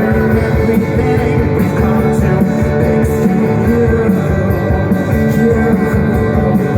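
Live rock band playing: guitars and drums, with a voice singing over them, loud and continuous.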